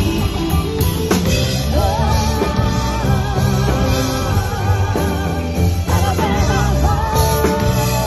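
Live rock band playing, with drums, electric bass and guitars, and voices singing the melody from about two seconds in, pausing briefly near the six-second mark before resuming.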